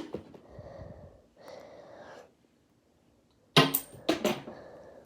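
Faint breathy sounds, then a quick cluster of sharp clicks and knocks about three and a half seconds in.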